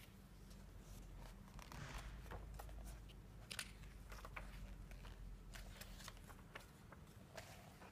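Faint rustling and soft clicks of glossy magazine pages being handled and turned over by hand.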